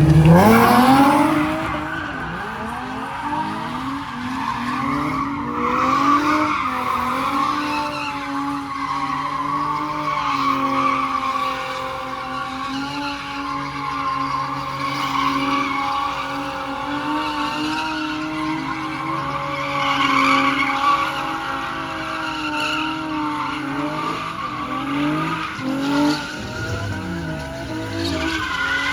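A car drifting: the engine revs up in the first second and is held at high revs through a long slide, with tyres squealing over it. Near the end the revs fall and rise again.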